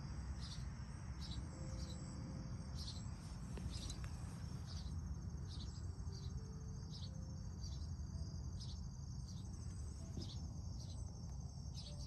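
Crickets chirping in a garden: a steady high trill with short chirps repeating about once a second, over a steady low rumble.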